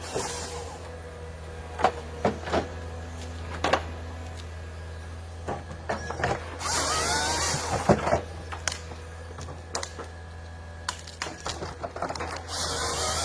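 Forestry harvester at work: its engine runs with a steady low hum while the harvesting head knocks and clacks on the logs. A harsh burst of cutting or feeding noise comes about seven seconds in and again near the end.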